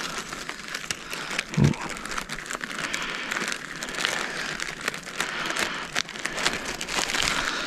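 Clear plastic Ziploc bag crinkling and rustling in the hands as cleaned grouse meat is packed into it, with one brief low sound about one and a half seconds in.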